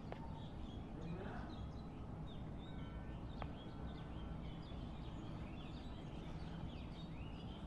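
Many small birds chirping and twittering at dawn, short quick notes overlapping throughout, over a steady low background rumble.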